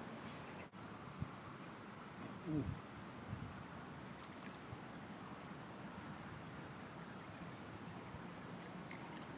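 Insects chirring steadily in a single high, unbroken drone over faint background hiss. A brief, low falling sound about two and a half seconds in.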